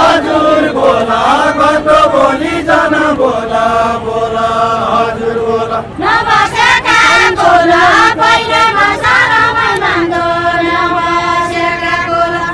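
A group of men sings a Nepali deuda folk song in unison, without instruments. About six seconds in, a group of women answers at a higher pitch, and they hold long, steady notes near the end.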